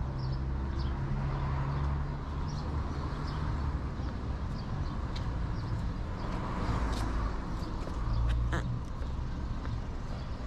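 Street ambience: a steady low rumble of car engines, with short high bird calls scattered throughout and a few sharp clicks about eight seconds in.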